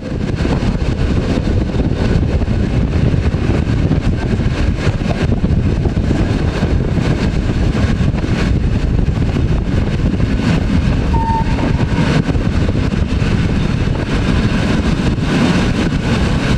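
Historic electric passenger train running along the line: a steady, loud running noise from the train in motion.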